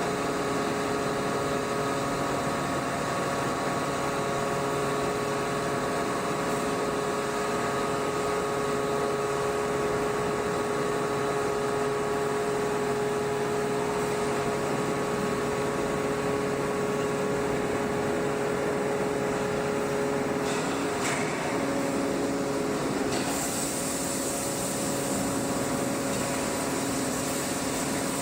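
Heavy industrial machinery running with a steady hum and several steady tones over it, the tones shifting a little over twenty seconds in.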